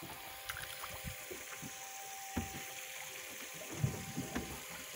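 Water sloshing and splashing against the side of a small fishing boat as a grouper is held in the water at the gunwale, with scattered light knocks, the loudest just before the end. A faint steady hum runs underneath.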